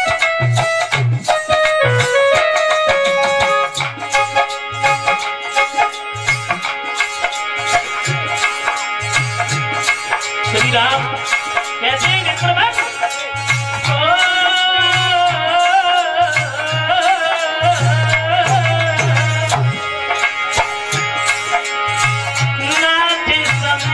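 Devotional song set to a Hindi film-song tune, with a steady hand-drum beat and a sustained melody line. For about the first ten seconds it is instrumental; then a man's voice sings over it.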